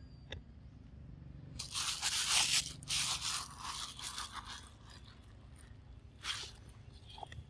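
A monkey scuffling and scraping on the rock right by the microphone. There is a loud crackling scrape about a second and a half in that lasts some three seconds, then a shorter one near the end.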